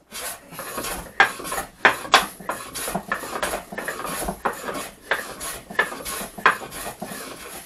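Japanese hand plane (kanna) shaving the end grain of a wooden board in a rapid series of short scraping strokes, several of them sharper and louder than the rest.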